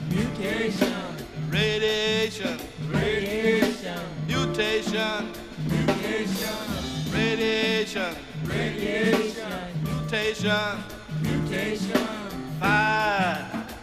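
Music from a DJ set: a wavering sung vocal over a repeating bass line.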